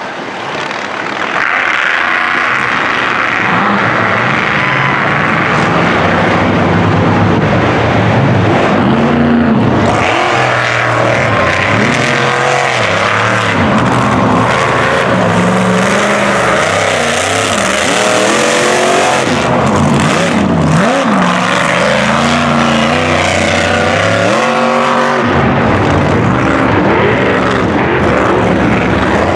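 A mega truck's engine revving hard as it races through dirt and mud, the revs climbing and dropping again and again.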